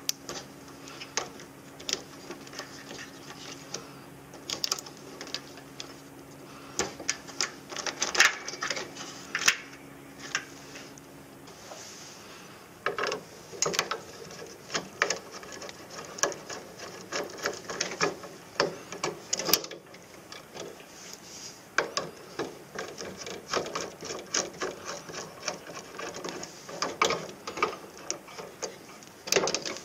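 Hand tools working on wiring and screws inside an electrical cabinet: irregular clicks, snips and scrapes from pliers and then a screwdriver, getting busier partway through. A low steady hum runs beneath and stops about eleven seconds in.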